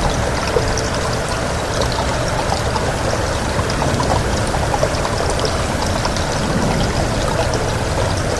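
Steady rain falling, with many small drop spatters over an even rushing hiss that runs unbroken and fairly loud.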